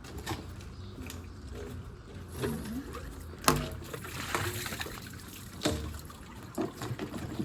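Water sloshing and trickling while water is emptied from a shop vac, with scattered small knocks and one sharp knock about three and a half seconds in.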